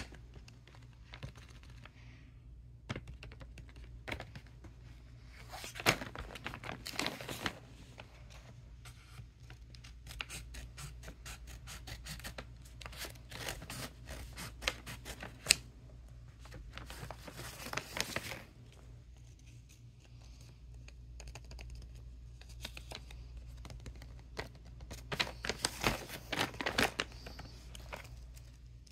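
Paper bag being handled and cut open with scissors: clusters of short snips, rustling and crinkling of the paper that come and go, over a faint steady low hum.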